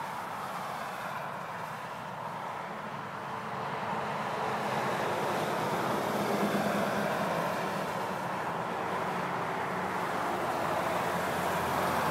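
Road traffic: a steady rush of passing vehicles that grows louder about four seconds in as a vehicle goes by.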